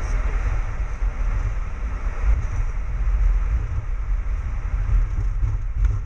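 Boeing 737 on its landing roll, heard from inside the cockpit: a steady, heavy low rumble from the wheels on the runway and the airframe.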